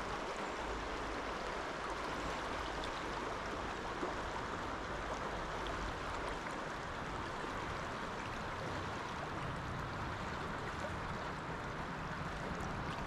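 Shallow stream water running steadily over a rocky riffle, an even rushing sound.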